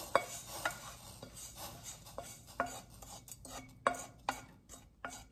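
Wooden spoon scraping and knocking against a metal skillet as toasted steel-cut oats are pushed into a saucepan of boiling milk and water. A handful of irregular sharp clicks, the loudest right at the start.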